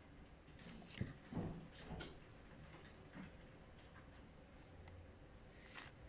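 Faint, scattered clicks and light knocks of a smartphone being handled, with a small cluster about a second in and another near the end.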